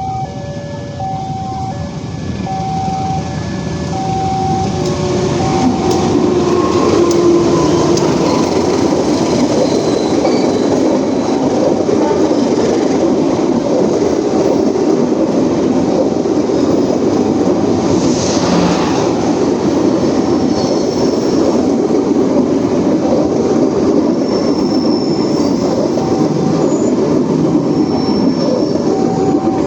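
A passenger train hauled by a CC 206 diesel-electric locomotive passes close by. Its rumble and wheel noise build over the first few seconds and then hold steady and loud. Under it a level-crossing warning signal keeps sounding its alternating two-tone pulse, about two tones a second.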